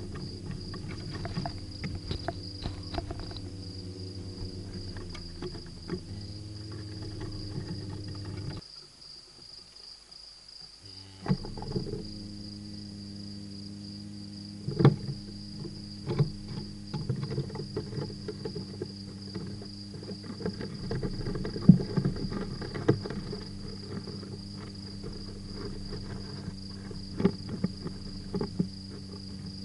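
Dormouse scrabbling and scratching on the microphone housing close to the microphone, many short sharp clicks and scrapes, the loudest about 11, 15 and 22 seconds in. Behind it, a steady high chirring of crickets and a low steady hum.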